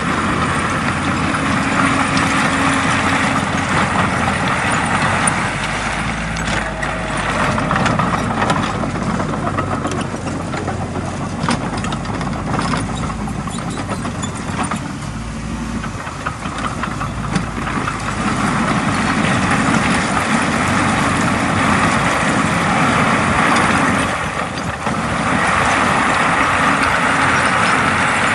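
Diesel engine of a Komatsu D20A bulldozer running as it pushes soil, its note swelling and easing: loudest near the start and again in the last few seconds, easing off around the middle.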